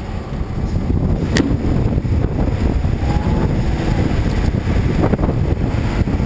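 Wind buffeting the microphone over the low rumble of a hooklift truck driving with a dumpster on its bed, with one sharp knock about a second and a half in.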